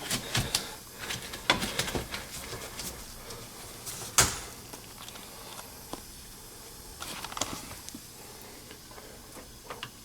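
Scattered clicks, knocks and light rustling of parts being handled, with one sharp knock about four seconds in and only a few faint taps after that.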